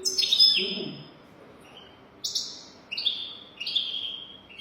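European goldfinch singing: quick phrases of bright, twittering chirps separated by short pauses, loudest just after the start.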